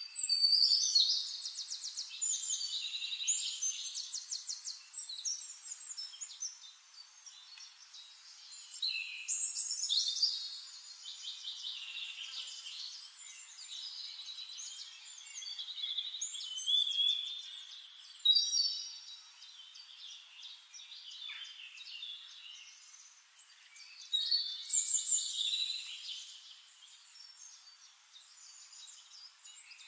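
Small songbirds singing: rapid high-pitched trills and chirps come in several loud bursts, with quieter twittering between them.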